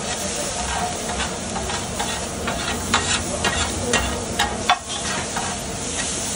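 Onion and spice masala sizzling in hot oil in a pan while a spatula stirs it, with a steady frying hiss and repeated sharp knocks and scrapes of the spatula against the pan.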